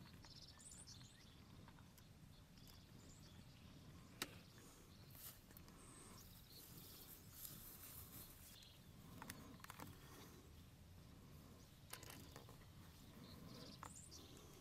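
Near silence: faint outdoor ambience with scattered short high chirps and one sharp click about four seconds in.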